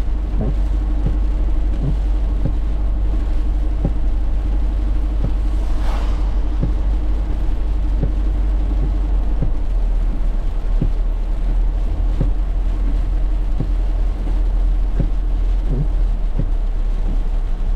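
Car driving with a steady low road rumble, and scattered light ticks, about one a second, of sleet pellets striking the car.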